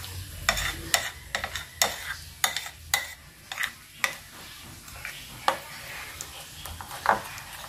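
Metal spoon stirring a thick flour batter in a bowl: wet slopping with irregular clicks and scrapes of the spoon against the bowl, most frequent in the first three seconds and sparser after.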